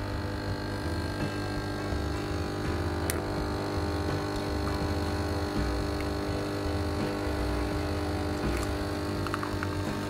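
Arissto Happymaker capsule coffee machine's pump humming steadily as it dispenses a thin stream of milk into the cup for a cappuccino.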